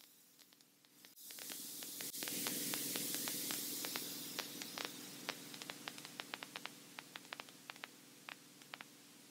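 Faint static hiss with scattered crackling clicks on the aircraft's radio/headset audio. It sets in about a second in, then the crackles thin out and fade away over the last few seconds, with a steady low engine hum beneath.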